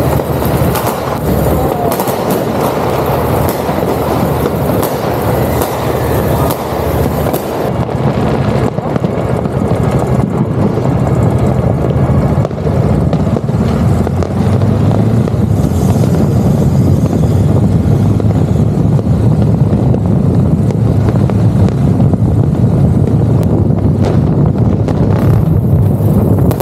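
Motorcycle riding along a road: the engine runs steadily under a constant rush of wind on the microphone, the engine note becoming stronger and steadier about a third of the way in.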